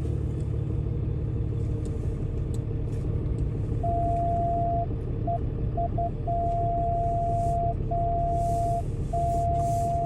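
Pickup truck towing a fifth-wheel RV, a steady engine and road rumble while driving. From about four seconds in, a single steady electronic tone sounds in broken stretches, a few short blips and then longer held beeps.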